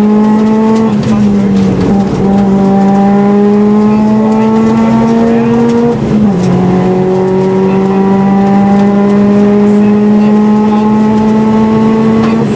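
Subaru 2004 Impreza STI's turbocharged flat-four engine running hard at speed. Its note climbs slowly in pitch, dipping briefly about one and two seconds in and again about six seconds in before climbing again.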